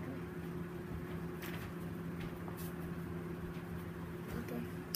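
Steady low hum in a small room, with a few faint clicks and rustles of small plastic parts and a plastic bag being handled.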